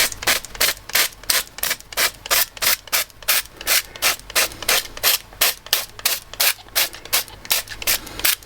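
Hand-pumped trigger spray bottle of rice bran oil squirted over and over in quick, even hissing bursts, about three a second, oiling the chicken drumsticks in the air fryer basket.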